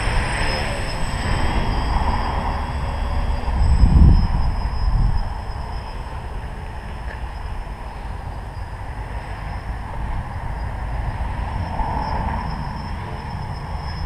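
Electric motors and propellers of a small tricopter buzzing as it flies around, the whine swelling as it comes nearer, under heavy wind rumble on the microphone that is loudest about four seconds in.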